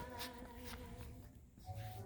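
Faint background music with a few held notes that fade out about one and a half seconds in, with light ticks over it.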